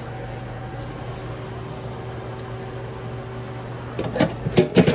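Steady hum of restaurant kitchen equipment, then from about four seconds in a quick run of sharp clicks and crinkles from gloved hands working at the sandwich prep counter.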